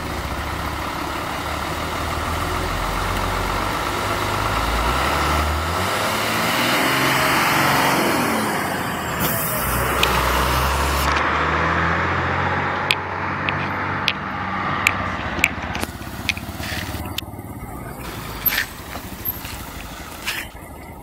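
Laden Hino truck's diesel engine pulling away, revving up in several rising steps and at its loudest as it passes close by. A brief hiss comes about ten seconds in. The engine then fades as the truck drives off, with a few sharp clicks near the end.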